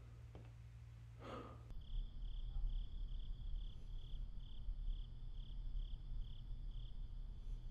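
A breath or sigh about a second in, then crickets chirping steadily, about two chirps a second, over a low steady hum.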